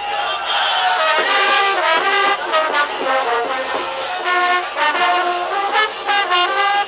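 Brass band playing a lively carnival dance tune in full chords, with short punched chords repeating through the passage.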